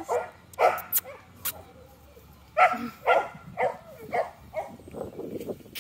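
Boxer puppy barking in about half a dozen short, high yaps, two close together and then, after a pause of about two seconds, four more in quick succession.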